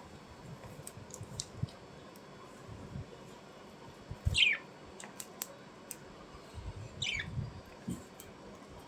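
A bird giving two short calls that slide down in pitch, about four and seven seconds in, with scattered faint clicks and low knocks in between.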